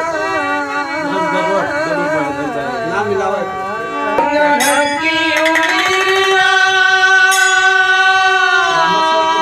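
A singing voice in an ornamented, melismatic style, its pitch wavering and sliding through the first half, then one long held note for about three seconds in the second half.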